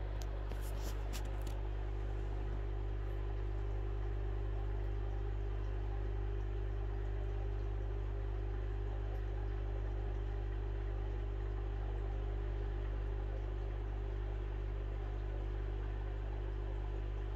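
Steady hum of a large aquarium's pumps and filtration, with a constant wash of water and air bubbles; a few light clicks about a second in.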